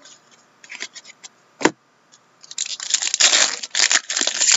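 Trading cards handled with light clicks and one sharp click, then, about two and a half seconds in, an Upper Deck Trilogy hockey card pack being torn open, its wrapper crinkling loudly.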